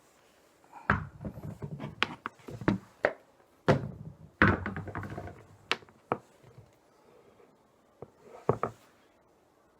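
Irregular thumps and clunks, several in quick succession, then a pause and a last few knocks near the end.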